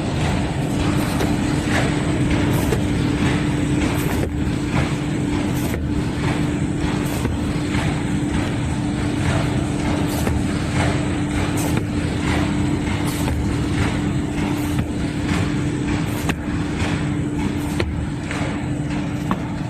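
Flexo printer with a rotary die-cutter for corrugated board running: a steady mechanical drone with a hum, and a sharp tick about every second and a half.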